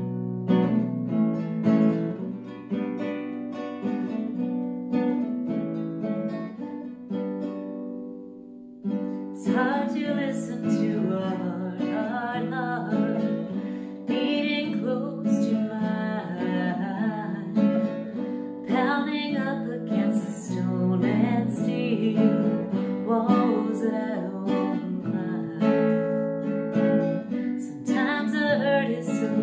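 Nylon-string classical guitar playing a song intro alone; about nine seconds in, a woman starts singing along over the guitar.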